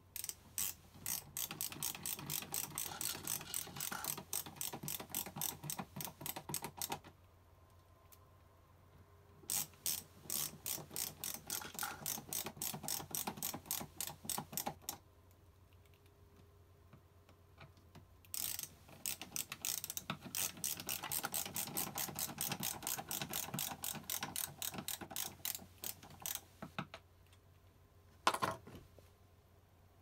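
Hand ratcheting screwdriver clicking rapidly in three long runs with short pauses between them, as screws are driven to fix a switch fitting into a wooden cabinet panel. A single sharp knock comes near the end.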